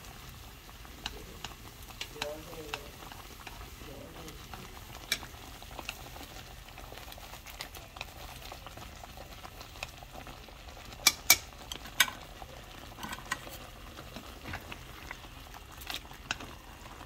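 Thick red bean porridge with kalguksu noodles bubbling and spluttering in a pan while a spoon stirs it, scraping and tapping against the pan. A few sharper taps come about eleven to twelve seconds in.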